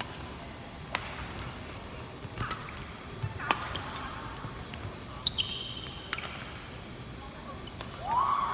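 Badminton rally in a large echoing sports hall: about six sharp racket strikes on the shuttlecock, roughly one every second or two. A brief high shoe squeak comes about five seconds in, and a player's voice rises near the end.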